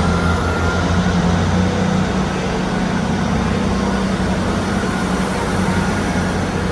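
A train running with a steady, loud low engine hum and a thin high tone that rises slowly near the start.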